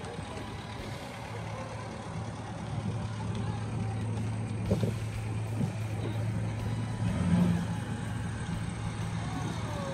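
Classic cars crawling past one after another in slow-moving traffic, their engines running at low speed. A steady low engine hum grows louder through the middle and peaks about seven seconds in, and a falling engine note follows near the end as a car passes.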